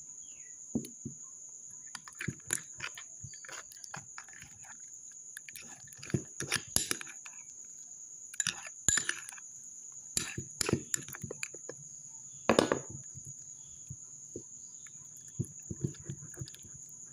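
Homemade glue-and-borax slime being kneaded and stretched by hand in a glass bowl, giving a run of wet clicks, smacks and pops, the loudest about three-quarters of the way through. Crickets chirp steadily in the background.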